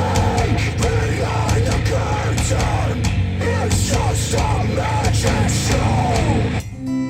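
Loud rock music with a heavy drum beat, played through Wharfedale Denton 80th bookshelf speakers. About six and a half seconds in it cuts abruptly to a new track of strummed guitar.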